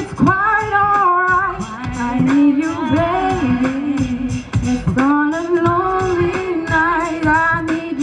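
A girl singing a song into a handheld microphone, amplified through stage speakers, over backing music with a steady beat.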